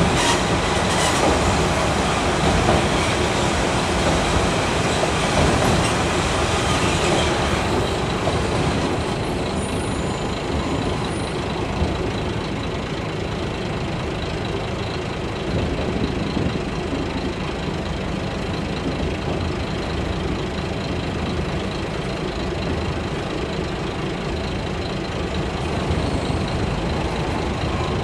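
Kashima Rinkai Railway 6000-series diesel railcar running, heard from inside the passenger cabin: steady engine and rail noise as it comes out of a tunnel. The noise is louder and harsher for the first several seconds, then settles quieter and even.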